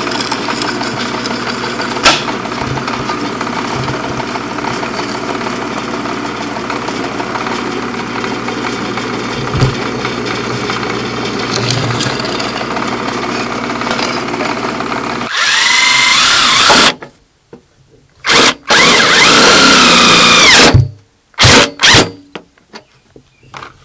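Drill press running steadily as its bit bores through a metal mounting plate for about fifteen seconds. Then a handheld power drill runs in a few loud bursts, spinning up and down, with short blips near the end.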